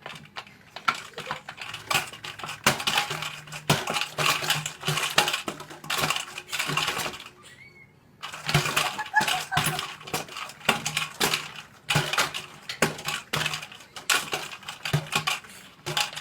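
Rapid, irregular clattering and tapping of small hard objects, with a brief pause about eight seconds in, over a faint steady low hum.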